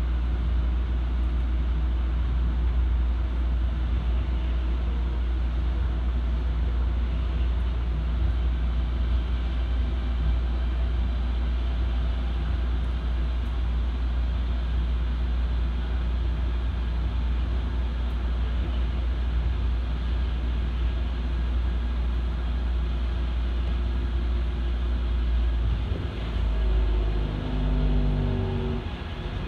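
Osaka Monorail train running along its elevated concrete guideway, heard from inside the front car: a steady low rumble from the rubber-tyred running gear, with the steady whine of the traction motors over it. Near the end the rumble drops away and the whine steps down in pitch.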